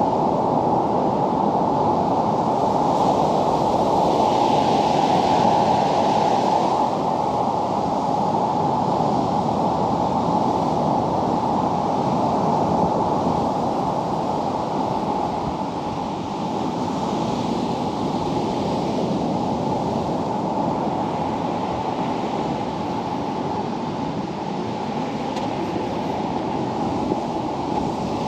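Ocean surf: a steady rushing wash of waves, with the hiss of breaking water swelling up about three seconds in and again about seventeen seconds in.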